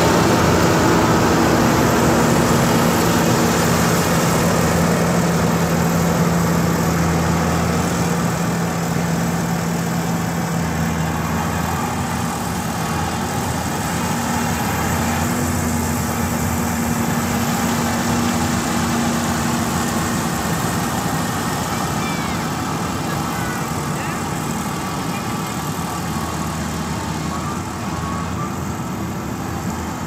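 Yanmar AG600A rice combine harvester running as it cuts and threshes rice, a steady engine hum with machinery noise that slowly fades as the machine moves away.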